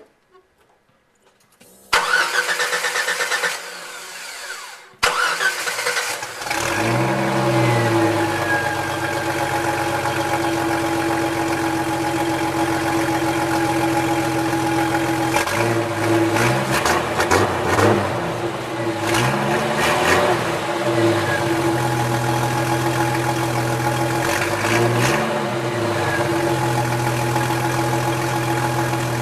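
1991 Jeep Wrangler YJ's fuel-injected 4.0-litre inline-six cold-started: the starter cranks for about three seconds, the engine catches about six seconds in, then idles steadily through the exhaust with five quick throttle blips.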